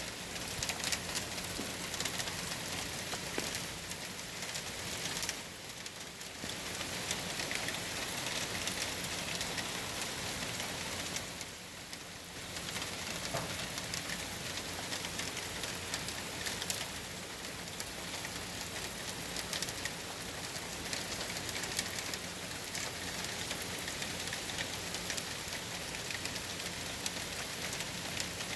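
Steady hurricane rain falling and pattering on surfaces, a dense hiss of fine drops that eases briefly about six and twelve seconds in.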